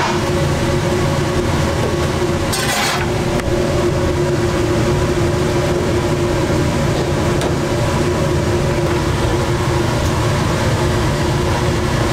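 Steady rumble and hum of commercial kitchen cooking equipment running beside a stainless basket cooker of boiling water, with a brief hiss about two and a half seconds in.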